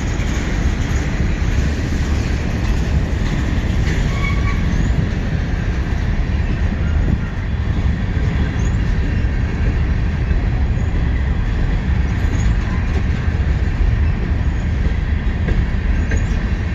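CSX freight train cars rolling past with a steady, loud rumble of wheels on the rails, and a brief faint wheel squeal about four seconds in.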